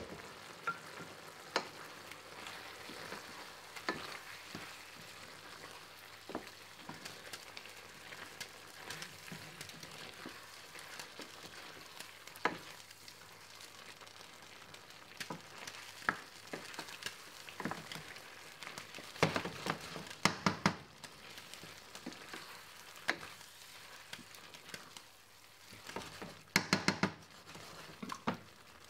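Chicken sizzling in a pan on the stove at medium heat. Scattered clicks and knocks of a utensil against the pan run over it, in quick clusters about two-thirds of the way through and again near the end.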